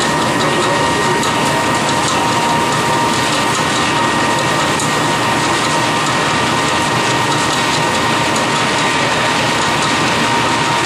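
A miniPelleter 18 pellet mill running steadily as it presses fish feed through an 8 mm die. It gives a constant whine over a dense clatter of pellets pouring from the chute into a plastic tub.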